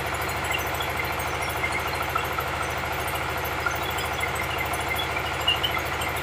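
Dongfeng 24 hp single-cylinder diesel engine running steadily under load, belt-driving a rice huller that is milling paddy into rice, with scattered light ticks over the steady engine drone.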